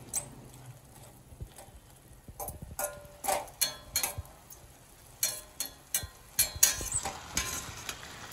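Spatula stirring rose petals in sugar syrup in a stainless steel pot: irregular scrapes and knocks against the pot, over a faint sizzle of the hot syrup.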